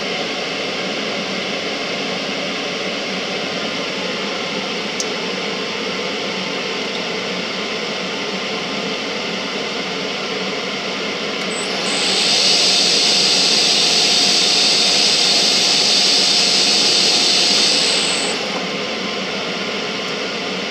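Small bench lathe switched on and running steadily for about six seconds, a high whine over a hiss, starting about twelve seconds in and then shutting off, while a brass case is trimmed in the collet chuck. A steady fan-like hum runs underneath, with a single sharp click early on.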